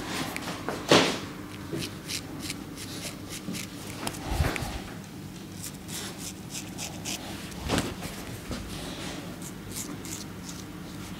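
Cut-throat razor scraping through lathered beard stubble, a dry crackle of short strokes. A few louder knocks break in, about a second in, around the middle and near eight seconds.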